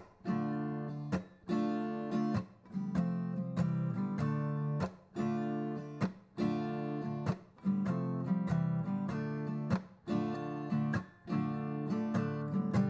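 Background music of strummed acoustic guitar chords in a steady rhythm, with brief breaks between phrases.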